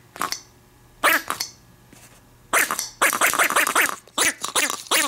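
Pink cat-shaped Oshaberi Piropiro Doubutsu squeeze toy being squeezed, pushing air out through its mouth as its blowout tongue unrolls. It gives squeaky, voice-like cries that bend in pitch: a short one about a second in, then a string of them from about two and a half seconds in until near the end.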